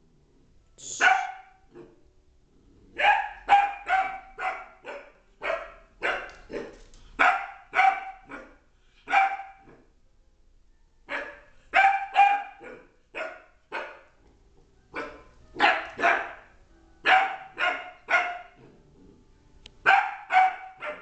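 A 13-week-old beagle puppy barking over and over at a stuffed toy dog. The barks are short and high, coming in quick runs of several at a time with brief pauses between the runs.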